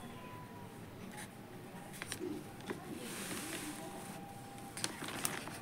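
Faint scratching of a pen writing by hand on paper, with a few small clicks and taps.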